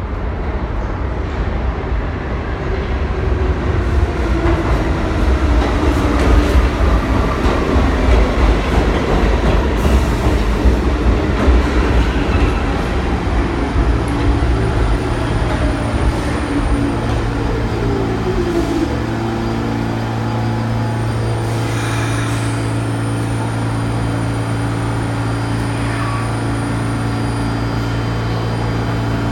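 New York City subway train pulling into the station: a loud rumble with a whine falling in pitch as it slows. About halfway through it comes to a stand, and a steady hum from the standing train takes over.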